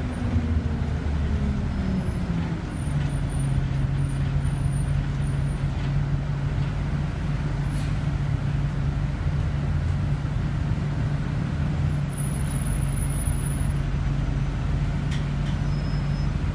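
Scania OmniCity city bus heard from inside the cabin while driving: a whine that falls in pitch over the first two seconds, then a steady low engine and drivetrain hum.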